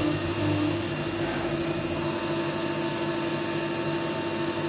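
CNC milling machine cutting a metal block with an end mill under flood coolant: a steady spindle whine and cutting noise over the hiss of the coolant spray.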